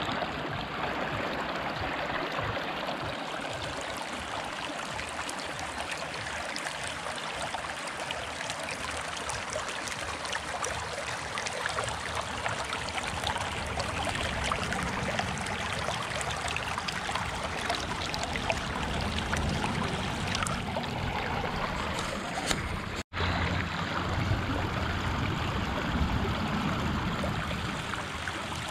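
Shallow creek running over rocks and gravel: a steady rushing and trickling of water. The sound breaks off for an instant late on, then carries on as before.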